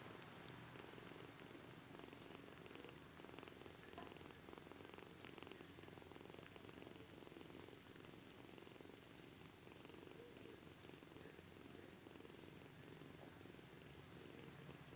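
Faint, steady purring of cats while the kittens nurse, with a few faint small clicks.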